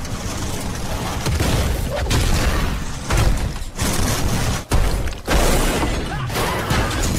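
Dense action-film sound mix: a heavy armored truck's engine with crashing and splintering as its ram plate smashes through a wooden and sandbag barricade, amid booms and gunfire. The din breaks off sharply a few times in the middle.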